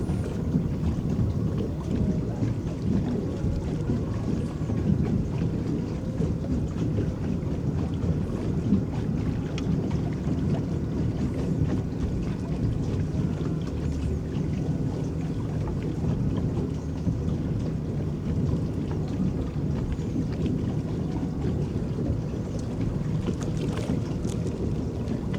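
Water churning and lapping around an electric boat under way, heard as a steady low rumble.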